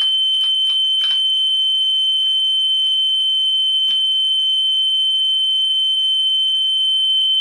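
Steady 3,000 Hz speed-calibration test tone played from a test cassette in a Pioneer cassette deck, a single high pitch that starts suddenly and holds. A few faint clicks come in the first second and one more about four seconds in.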